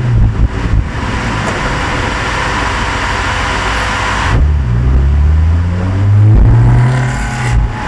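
Race car engine running at speed, with a loud rushing noise for the first half. From about halfway the engine note climbs as it accelerates, then breaks off briefly and picks up again near the end.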